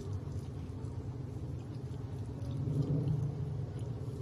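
A low steady rumble, growing louder about two and a half seconds in.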